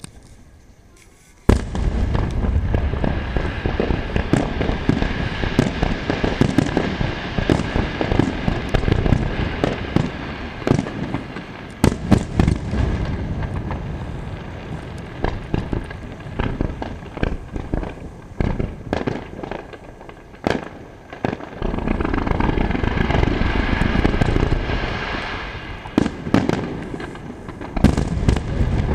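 A starmine firework barrage, computer-timed, with shells bursting one after another in many bangs in quick succession. It starts suddenly about a second and a half in, eases for a moment about two-thirds of the way through, then builds again.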